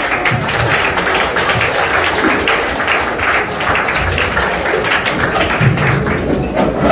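A crowd of schoolchildren clapping, a dense steady applause.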